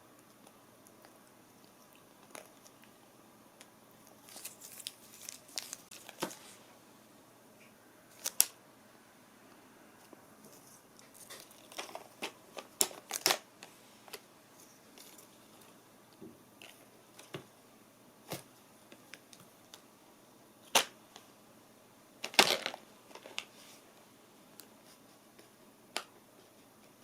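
A cat batting and biting at a small scrap: scattered light taps and short rustling clusters, with a couple of sharper knocks.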